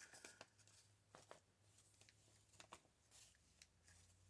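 Near silence: a few faint ticks and rustles of paper being handled during collage gluing, over a faint low hum.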